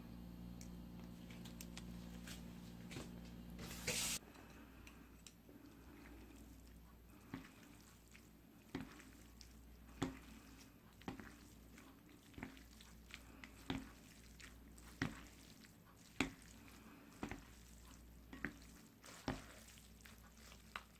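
Close-miked eating of noodles: short wet chewing and mouth sounds, about one a second. For the first four seconds there is a steady low hum, which stops after a brief loud hiss.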